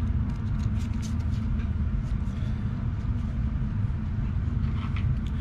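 A steady low hum, with faint light clicks of small metal carburettor parts being handled and fitted.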